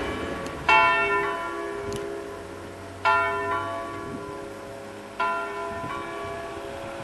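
Church bells ringing in an open bell tower: three strong strokes about two seconds apart, each ringing on and fading, each a little weaker than the one before.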